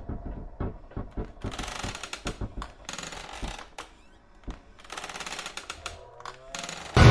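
Irregular clicks and knocks with short bursts of hiss, and faint rising tones near the end. A sudden loud burst of sound comes in right at the end.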